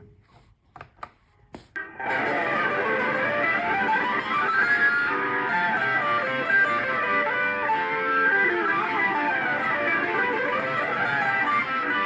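Electric guitar played through a Zoom G1X Four multi-effects pedal preset patch. After a few faint clicks, the guitar comes in about two seconds in with fast runs of notes rising and falling, the notes overlapping into a thick, sustained sound.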